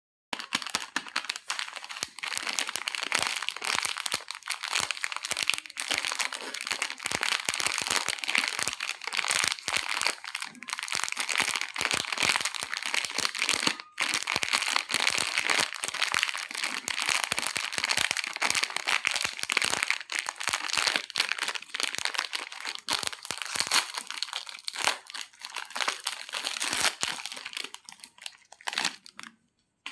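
Close-miked ASMR crunching and crinkling: a dense, unbroken stream of sharp crackles with a brief pause about halfway through, thinning out and stopping just before the end.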